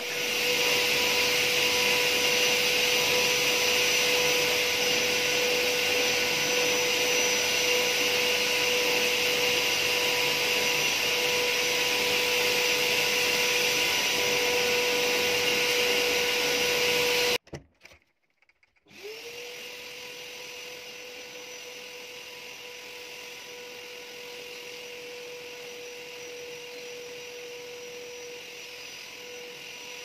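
Bagless canister vacuum cleaner running steadily with a constant motor whine over rushing air. About two-thirds of the way through it cuts out for a second or two, then starts up again with a rising whine and runs on more quietly.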